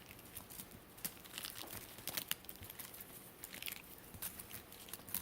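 Faint, irregular rustling and crinkling with scattered small clicks, from kittens being handled and moved about.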